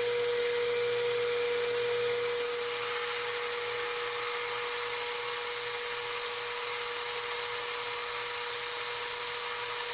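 Metal lathe running with a steady whine, turning down a shaft to a smaller diameter.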